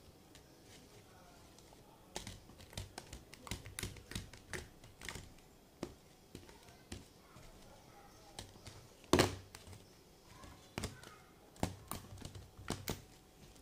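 Fingertips poking and pressing shaving-foam slime in a thin plastic bowl, making irregular soft clicks and taps. They start about two seconds in, with one louder knock about nine seconds in.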